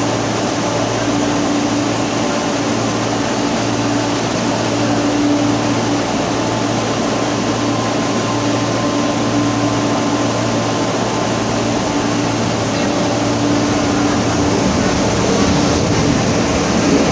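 Siemens ER20 diesel-electric locomotive running light, approaching and then passing close by, its engine and wheels louder near the end. A steady low hum lies under it throughout.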